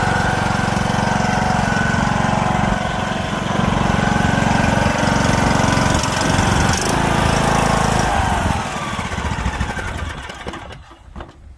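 John Deere LA115 riding mower engine running steadily, then dropping in pitch and winding down to a stop about nine to ten seconds in.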